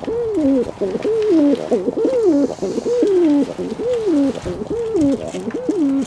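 Fantail pigeons cooing: a continuous run of low coos, each rising then falling in pitch, about two a second.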